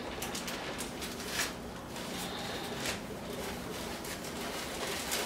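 Plastic zip bag crinkling as peat moss is shaken out of it into a plastic tub, with a few brief louder rustles about a second and a half and three seconds in.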